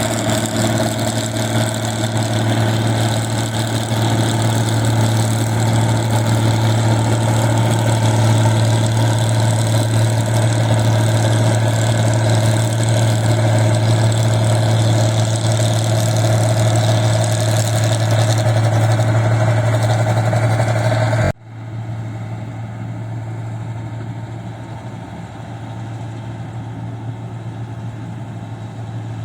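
Rice combine harvester engine running steadily. About two-thirds of the way through, the sound drops suddenly to a quieter, duller engine hum.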